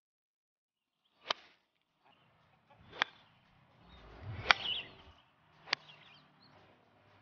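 Golf clubs striking balls: four sharp cracks, each about one to one and a half seconds after the last, some louder than others.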